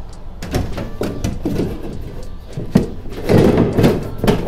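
Thin aluminium sheet flexing and knocking against the aluminium ribs and hull of a jon boat as it is pushed into place by hand. The clatter comes in uneven knocks, with a sharp knock a little under three seconds in and a busier stretch of rattling and scraping near the end.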